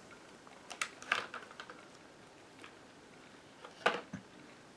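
A few light clicks and taps of hands handling a model steam locomotive and its clear plastic blister tray, in two small clusters about one second in and near the end.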